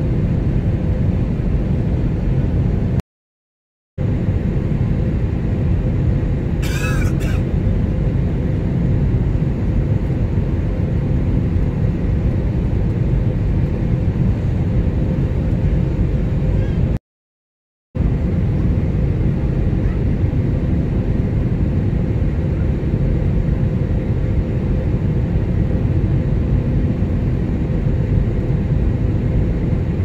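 Jet airliner cabin noise during takeoff and initial climb: the steady loud sound of the turbofan engines and airflow heard from inside the cabin, with a faint steady hum. It cuts out to silence for about a second twice, about three seconds in and again about seventeen seconds in, and a brief higher sound comes about seven seconds in.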